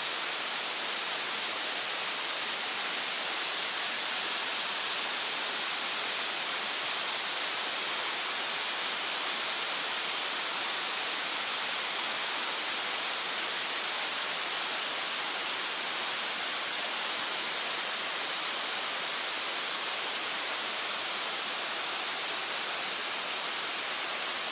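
The Kravica waterfalls rushing: a steady, even hiss of falling water.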